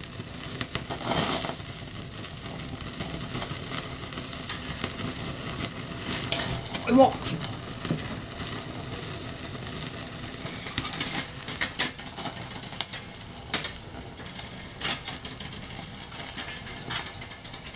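Wood fire crackling in a wood-gas camp stove while sausages sizzle on the grill above it, a steady hiss broken by many short sharp pops and clicks.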